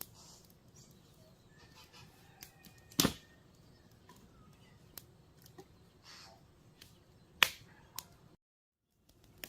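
Quiet outdoor background with scattered small clicks and two sharp knocks, one about three seconds in and one about seven and a half seconds in. The sound cuts out completely for about half a second near the end.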